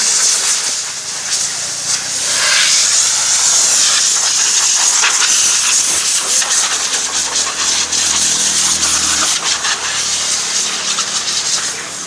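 Compressed-air blow gun hissing loudly in swelling, uneven blasts as it blows standing water out of a freshly washed car's gaps and crevices.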